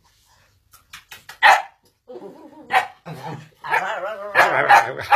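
Shetland sheepdog barking sharply several times, with whiny growling between the barks, starting about a second and a half in: play barking from a dog in a play bow.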